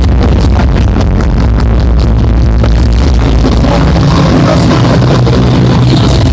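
Hardstyle dance music played very loud over an arena sound system, recorded from the crowd with poor, distorted sound quality. The steady kick beat drops out about halfway through, leaving a held synth passage, and comes back right at the end.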